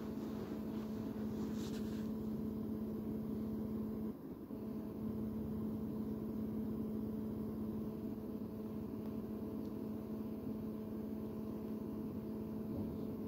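Steady machine hum with a low rumble underneath, dropping out briefly about four seconds in.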